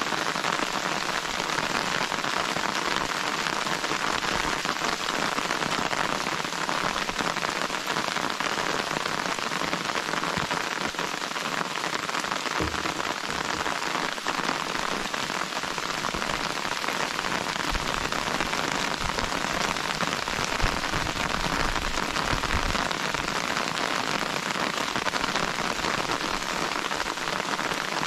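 Steady rain falling, an even hiss of drops that keeps up without a break.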